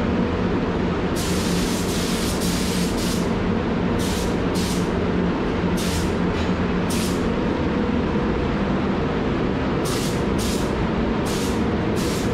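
Gravity-feed paint spray gun hissing in short trigger pulls, about a dozen bursts of a second or less, with a gap of about three seconds in the middle. Under them is a steady low rumble and hum from the spray booth's air handling.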